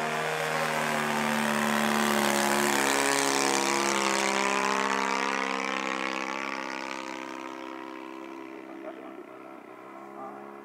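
Giant-scale RC Cessna 182's 85 cc four-stroke engine droning as the plane flies past: loudest a couple of seconds in, dropping in pitch as it passes, then fading away.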